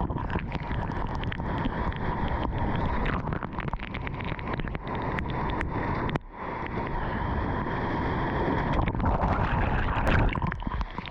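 Rough wind and water noise buffeting the microphone, full of crackles and knocks, with a sudden short drop about six seconds in.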